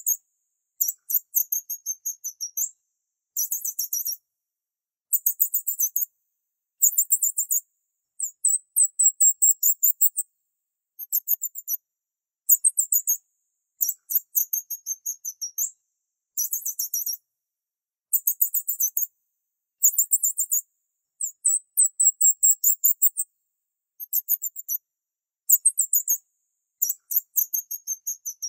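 Rapid, very high-pitched chirping trills, each about a second long, repeating with short gaps. There is nothing low in the sound, so it is not a pigeon's coo.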